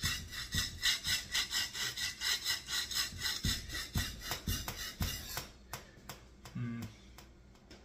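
Steel knife blade scraped back and forth on a whetstone in quick, even strokes, grinding the wire edge (burr) off the heel. The strokes stop about five seconds in, leaving a few faint clicks.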